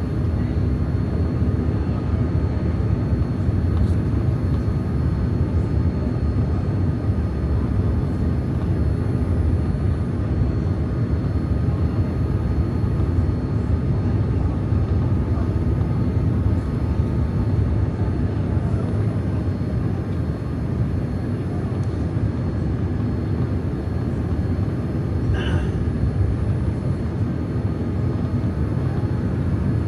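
Steady engine and airflow roar of a Boeing 787-9 in flight, heard inside the cabin, with one brief high-pitched sound about 25 seconds in.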